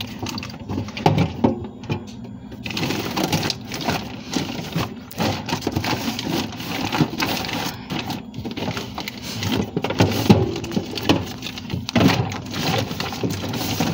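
Plastic bags of milk rustling and crinkling as they are shuffled and stacked by hand in a refrigerator drawer, with irregular bumps.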